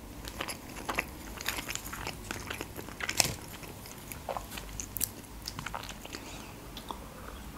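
A person biting into and chewing a baked sushi roll topped with melted cheese, with many small wet mouth clicks scattered through the chewing.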